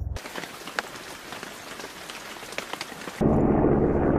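Rain falling with a fine patter of drops; about three seconds in a loud, low thunder rumble sets in suddenly and keeps going.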